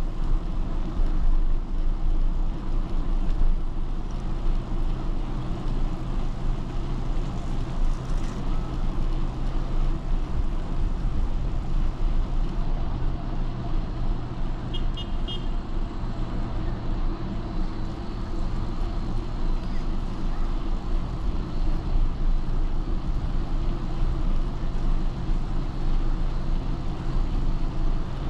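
Steady wind rush on the microphone and rolling noise of a bicycle riding along a smooth asphalt path, with a steady low hum underneath. About halfway through there is a brief burst of a few quick, high notes.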